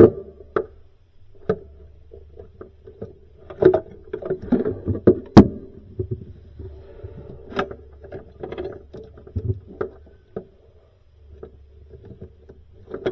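Hands working plastic wire-harness connectors together: scattered small clicks, knocks and handling noises, the sharpest click about five seconds in, over a steady low hum.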